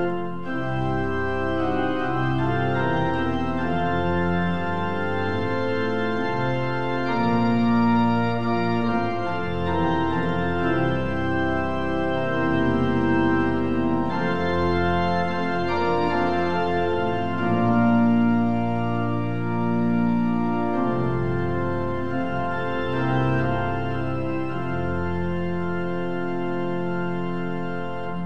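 Organ playing a slow piece in held chords that change every second or two.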